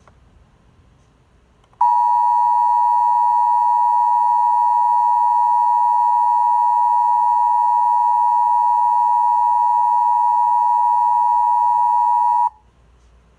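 Emergency Alert System attention signal: two steady tones sounded together as one harsh alarm, starting sharply about two seconds in, holding unchanged for about ten seconds and cutting off abruptly.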